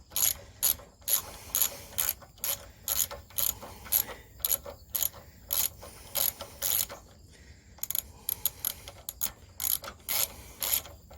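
Socket ratchet clicking in short bursts, about one every half second, with a brief pause about two-thirds of the way through, as a stubborn carburetor bolt is worked loose stroke by stroke.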